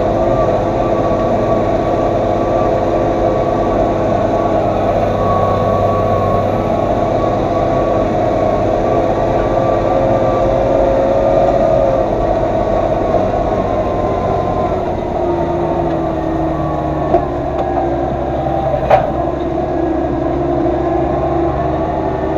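Massey Ferguson 3115 tractor's diesel engine running steadily while pulling a tillage implement through stubble, its note shifting a little past halfway, with two short knocks near the end.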